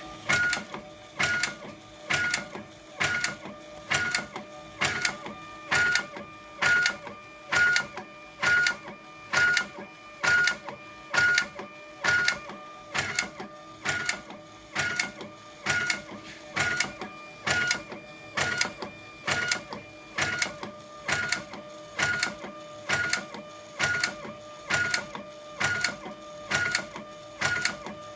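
Avery TTK thermal-transfer label printer printing polyamide textile labels, running in an even repeating cycle of short mechanical bursts a bit faster than once a second, each with a brief tone, over a steady hum.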